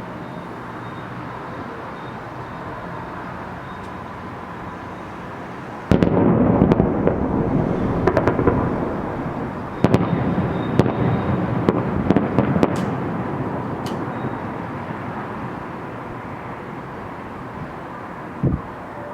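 Fireworks salute: a steady background hum, then about six seconds in a volley of shells goes off suddenly with loud booms and crackling. A second volley comes about four seconds later and fades away, with one more short thud near the end.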